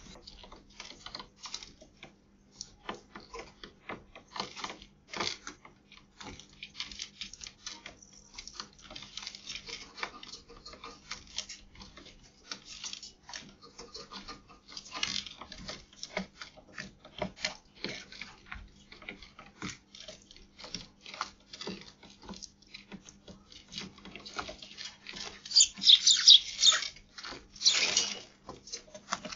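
Tree sparrows and a spotted dove pecking seed off a hard balcony ledge: rapid, irregular ticks and taps of beaks on grain and the surface. A louder, scratchier flurry comes near the end.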